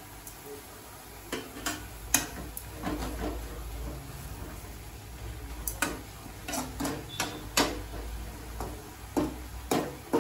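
Steel ladle stirring and scraping moringa leaves in a metal kadai, with sharp clinks and knocks of the ladle against the pan at irregular intervals over a low steady rumble.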